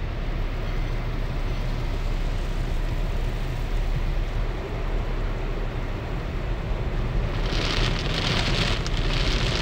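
Water spray drumming on a car's windshield and roof, heard from inside the car in an automatic car wash, over a steady low hum. The spray gets louder and pulses about seven and a half seconds in.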